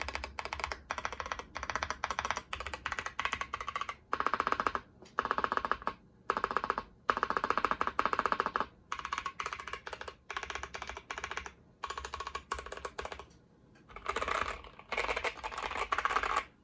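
Mechanical keyboard being typed on in quick bursts with short pauses between them. The keys are stock Boba U4T tactile switches on an aluminum plate in a TOFU60 aluminum case, fitted with Cherry-profile keycaps and a PE foam mod.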